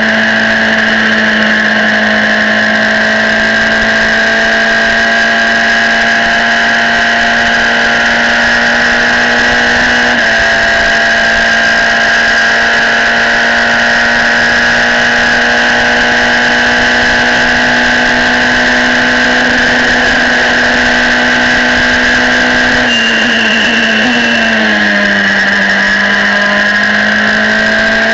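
Formula Renault 2.0 single-seater's four-cylinder engine running hard at high, nearly constant revs on full throttle, heard loud from the onboard camera. About ten seconds in there is a brief break in the note, and near the end the pitch drops and wavers as the car brakes and downshifts, then climbs again as it accelerates out of the corner.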